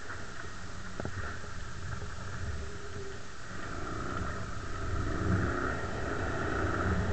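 Bashan 250 quad's engine running as the quad rides along a concrete slab road, growing louder about five seconds in.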